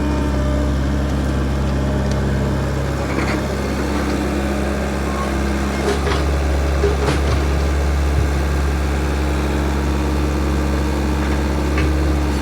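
Backhoe's diesel engine running steadily, with a slight change in its note a few seconds in and a few sharp knocks a little past the middle.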